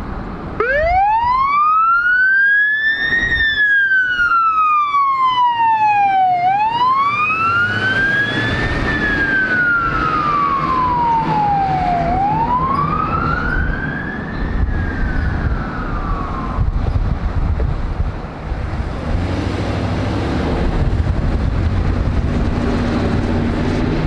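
Electronic emergency siren on a fire department response pickup sounding a slow wail, rising and falling about three times before fading out well past the middle. After that comes the low, steady noise of a passing vehicle's engine and tyres.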